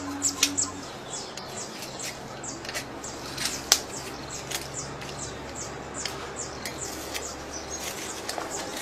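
Small knife cutting through crocodile hide, making an irregular run of sharp clicks and crackling ticks, with one louder click near the middle.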